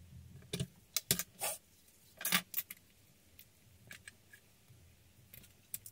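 Craft supplies handled on a cutting mat: a handful of sharp taps and clinks as a glue bottle and a jar of metal binder clips are picked up and set down. The taps are loudest in the first two and a half seconds, then thin out to faint ticks.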